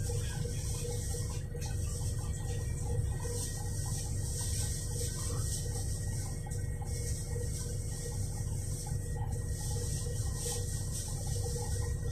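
Cabin sound of a Volgabus-5270.G2 city bus standing at a stop: the steady low rumble of its Yuchai YC6L280N-52 natural-gas engine idling, with a steady hiss over it.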